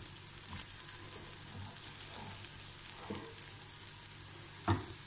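Flour-coated potato and mince patties shallow-frying in a little oil in a pan: a steady sizzle, with a few light knocks, the loudest near the end.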